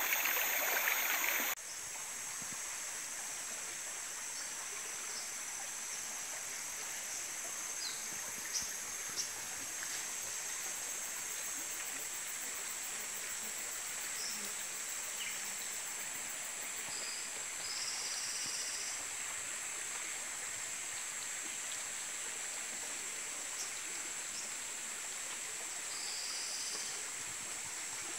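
Shallow rocky stream flowing steadily over stones. The flow is loudest for the first second and a half, then drops suddenly to a softer, even rush. A steady high-pitched drone sits above it, with a few short chirps and two faint clicks about eight to nine seconds in.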